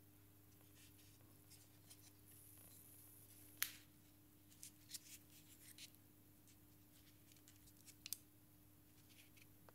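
Faint handling noise: scattered light clicks and taps as a laser-cut speaker panel and a wrapped 18650 battery pack are handled. The sharpest click comes a little over three seconds in, with a pair near the end, over a faint steady low hum.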